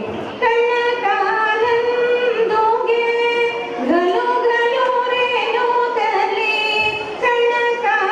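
A woman singing solo and unaccompanied, with long held notes and ornamented turns in the melody, pausing briefly for breath twice.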